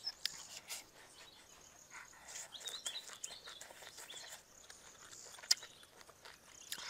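Birds chirping outdoors, a few short chirps around the middle. Over them come scattered soft clicks and wet smacks of food being handled and eaten, with one sharp click past the halfway mark.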